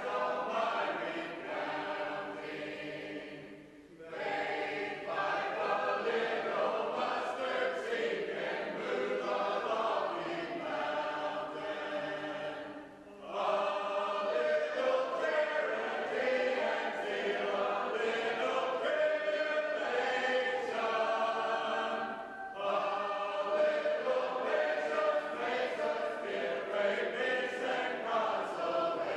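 Shape-note singing: a group of voices singing a cappella in harmony, with three brief breaks between phrases.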